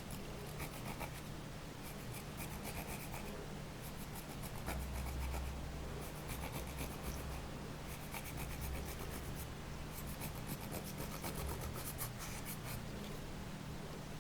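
Slime being kneaded and pressed by hand, giving runs of rapid, fine crackling clicks that come in bursts with short pauses between them.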